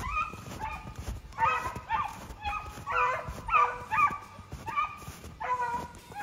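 A beagle baying in a run of short, high yelping notes, about two a second. This is a hound giving voice as it runs a snowshoe hare's track.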